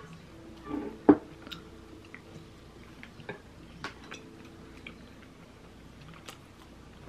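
Eating sounds: a person chewing, with a few sharp clicks and knocks of a wooden spoon and chopsticks against a ceramic bowl, the loudest about a second in.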